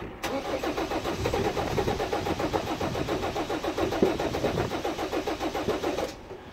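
Starter cranking a 2.9-litre turbo diesel (a Mercedes-copy engine as used in the SsangYong Musso) in a 1991 Ford Explorer. It turns over in an even rhythm without catching and stops after about six seconds. The owner suspects air in the diesel fuel system after the truck has stood for months.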